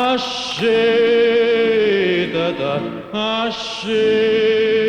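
Male voice singing a Neapolitan song in long held notes with vibrato. There are two long notes, one starting about half a second in and one nearer the end, each sinking in pitch as it is released.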